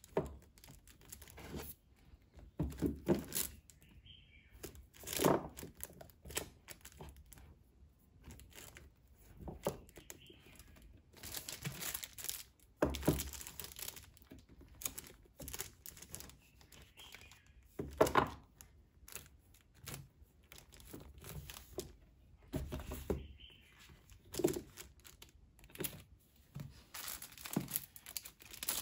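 Manga paperback volumes being slid, pushed together and knocked into place on a bookshelf by hand: irregular scraping, rustling and crinkling, with a handful of louder thunks as the books hit the shelf and each other.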